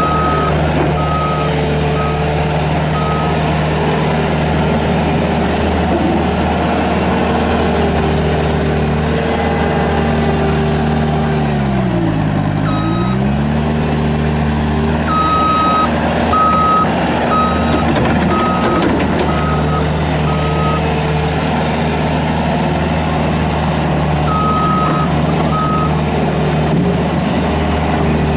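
Bobcat S250 skid steer's Kubota diesel engine running steadily. About twelve seconds in its speed drops sharply and recovers, as if pulled down under load. The loader's backup alarm beeps in several runs while it reverses.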